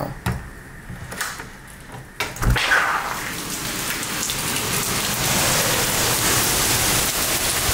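Heavy hurricane rain and wind. After about two seconds of quieter sound with a few knocks, a steady downpour comes in suddenly and keeps up evenly.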